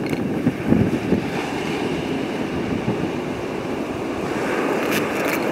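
Wind buffeting the camera microphone in irregular low gusts over the steady wash of sea surf.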